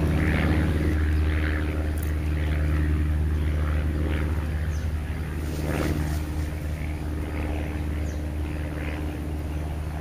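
A steady low motor hum that starts abruptly just before and runs on evenly, with faint short bird chirps scattered over it.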